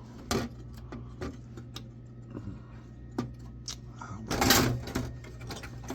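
Scattered sharp clicks and taps of computer parts being handled on a motherboard, with a louder scraping rustle about four and a half seconds in, over a low steady hum.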